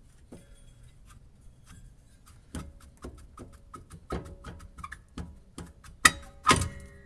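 Hammer pecking around the edge of a rust-seized rear wheel bearing hub and backing plate, metal on metal with a short ring. The taps come about three a second, faint at first and harder from about two and a half seconds in, with the two hardest near the end as the bearing breaks free of the rust.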